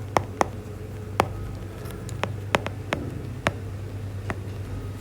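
Irregular sharp taps and clicks of a writing instrument on a board, about nine in all, over a steady low room hum.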